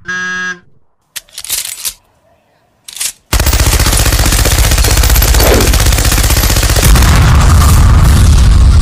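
Machine-gun fire sound effect: a long unbroken stream of rapid shots that cuts off suddenly, with a deeper rumble building beneath it about seven seconds in. It is preceded by a brief pitched buzzing tone and two short noisy bursts.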